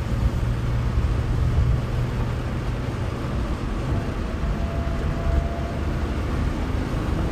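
1989 Porsche 911 Carrera's air-cooled 3.2-litre flat-six running steadily while the car drives, heard from inside the cabin.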